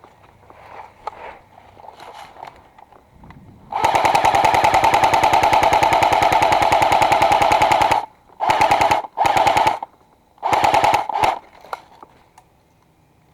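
Airsoft machine gun firing full-auto: one long burst of about four seconds, then three short bursts in quick succession.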